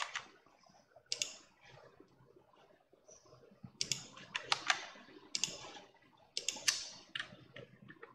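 Computer keyboard keys clicking in short, irregular runs: single clicks near the start, then quicker clusters of keystrokes in the second half.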